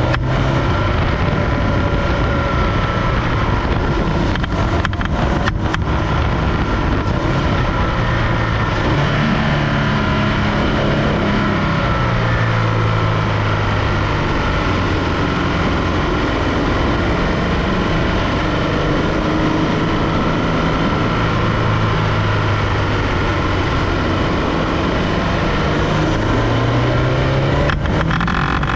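Supercharged Scion FR-S 2.0-litre flat-four running steadily loud, its engine note rising and falling slowly as the load and revs change. The owner is hunting a weird noise from the engine bay that comes with load while the car otherwise drives normally.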